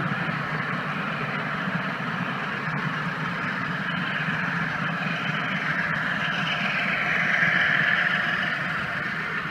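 HO scale model coal train rolling past, its hopper cars' wheels running steadily on the track, growing louder about seven seconds in as the diesel pusher locomotive at the rear goes by close.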